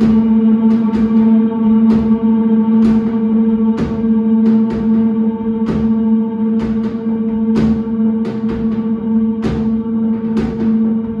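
Rock band playing a slow instrumental drone: electric guitars and baritone bass hold one low note steadily while the drum kit adds irregular drum and cymbal hits, about two a second.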